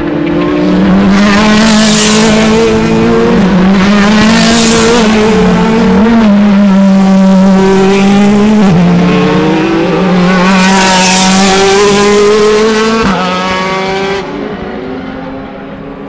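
DTM race cars' 4.0-litre V8 engines passing at speed, loud throughout, with the engine note shifting in pitch a few times; the sound falls away about fourteen seconds in.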